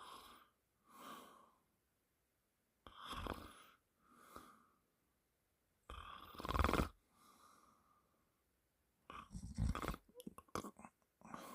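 A person snoring in deep, rattling snores about every three seconds, each followed by a softer breath. The loudest snore comes about halfway through. A run of short, irregular clicks and smacks sounds shortly before the end.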